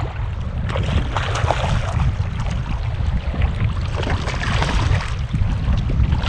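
Wind rumbling on the microphone over water splashing and slapping beside a small kayak on choppy sea, with irregular splashes.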